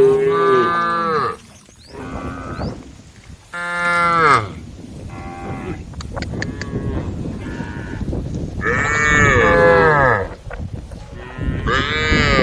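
Cows mooing, calling to the herd. There are four loud moos, at the start, about four seconds in, around nine seconds and near the end, with quieter moos from other cows in between. Each call drops in pitch as it ends.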